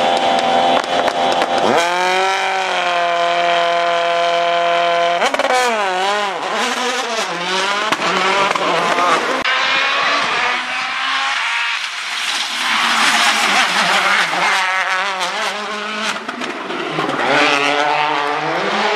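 Rally car engine driven hard at high revs. Its pitch shoots up about two seconds in and holds high for a few seconds, then rises and falls with throttle lifts and gear changes, climbing again near the end. Tyre squeal is mixed in.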